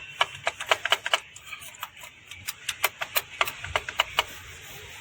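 Hand ratchet clicking in quick irregular runs as the 10 mm bolts holding the BMW Valvetronic servo motor are undone.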